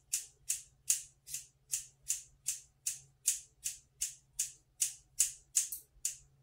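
Hair scissors snipping repeatedly into a bunch of dry long hair, about two and a half crisp snips a second, stopping just before the end.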